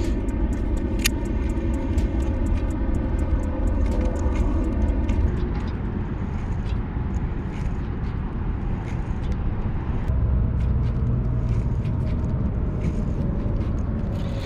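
Wind rumbling on the microphone beside a pond as a baitcasting rod is cast and reeled, with scattered small clicks from the reel. A steady droning hum, like an idling engine, runs under it and cuts off about five seconds in.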